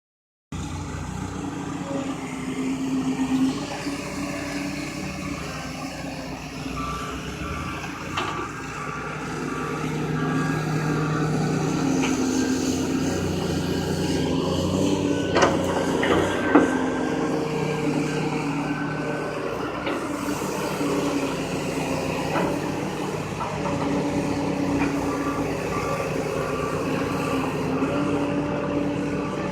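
Backhoe's diesel engine running under varying load, rising and falling, with a back-up alarm beeping in stretches. There are a few sharp metallic knocks about halfway through.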